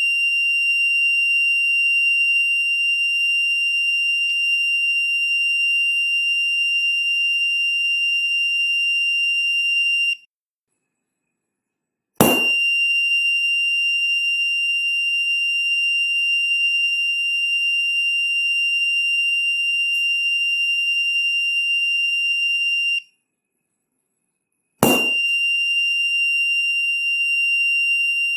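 Buzzer of a 555-timer vibration alarm sounding a steady high beep for about ten seconds, then cutting off. A sharp knock, which the piezo sensor picks up as a tremor, sets it off again. This happens twice, at about twelve seconds and again near the end.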